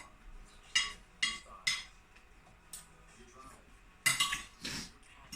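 Dishes and cutlery clinking, with three short clinks about a second in and a denser run of clinks near the end.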